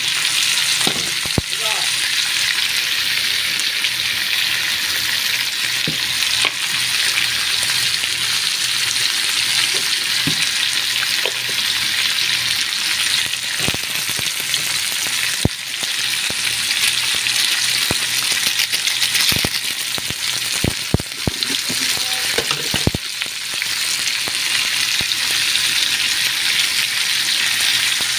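Chicken pieces sizzling in a hot pan as they are sautéed with garlic, onion and ginger, a steady hiss with scattered sharp clicks of a utensil knocking against the pan as it is stirred, most of them in the middle of the stretch.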